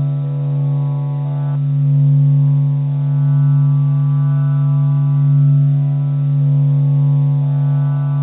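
A steady low humming drone with a stack of overtones, its upper overtones shifting now and then, such as one change about one and a half seconds in. It is presented as the sound of the Sun.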